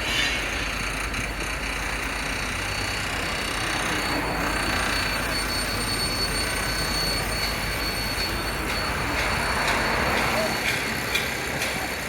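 Steady street noise from passing vehicles, a continuous wash of traffic.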